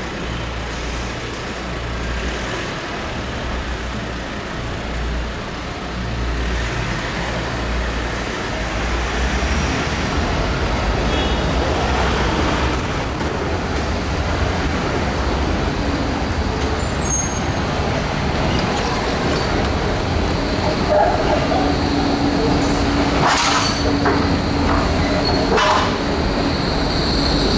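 City street traffic with an electric tram on the move: a steady low rumble that slowly grows louder, a steady hum joining about three-quarters of the way through, and a few short hisses or squeals near the end.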